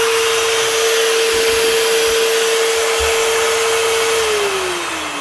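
Rotabroach Element 50 magnetic drill's motor running free at full speed with a steady whine and rushing fan hiss, then switched off about four seconds in and winding down with a falling whine. It is a test run showing the motor now starts after the wiring fault was repaired.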